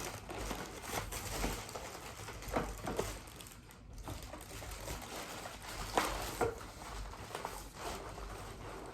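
Scattered light knocks and clicks of a PC case and its glass side panel being handled, the sharpest about six seconds in, over a low steady hum.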